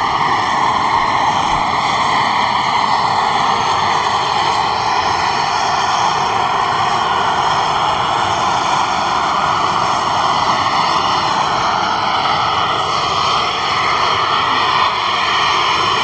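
Fumarole steam vent: a jet of steam blasting out of the ground under pressure with a loud, steady hiss.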